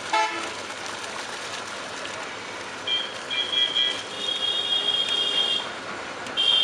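A steady hiss from a large aluminium pot of biryani water at the boil as soaked rice is tipped in. From about three seconds in, a high-pitched electronic beeping tone sounds in several stretches with short gaps and is the loudest sound; a short pitched blip sounds right at the start.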